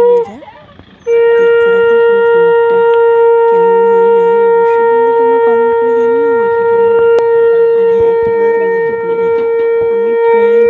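Conch shell (shankha) blown in long steady blasts: one blast cuts off right at the start, and after a pause of about a second a single held blast lasts about ten seconds. Voices chatter faintly underneath. The conch is blown as the auspicious welcome for a newly arrived bride.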